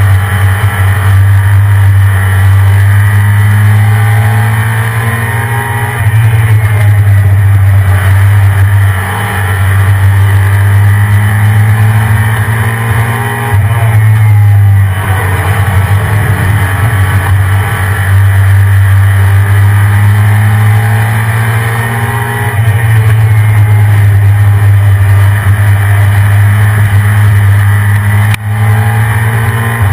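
Stock 1993 Ford F-150 Lightning's 5.8-litre V8 running hard under way, its pitch climbing and falling back several times over a heavy, loud low drone.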